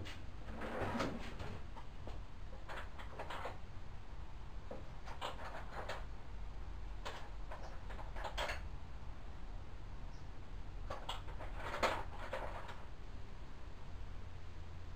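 Scattered short clinks and rustles of workshop tools being handled, over a steady low hum, with the loudest clatters about a second in and near the end.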